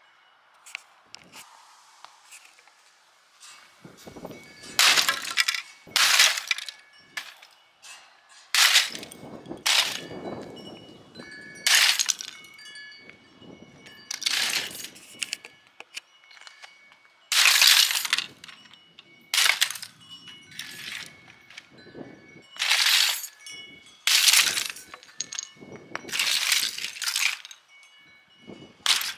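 A portable CD player's plastic casing being smashed with a long pole on brick pavers: after a few quiet seconds, repeated irregular blows, each a sharp crack of breaking plastic, with broken pieces clinking and clattering across the bricks.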